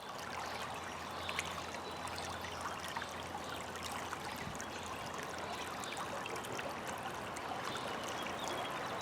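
Steady flowing, trickling water, with many small splashes over a continuous rush.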